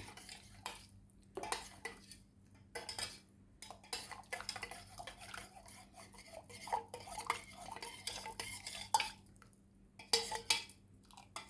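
A spoon stirring and clinking in a vessel, mixing sweetener into a freshly strained herbal kashayam, as irregular clinks and taps with short pauses.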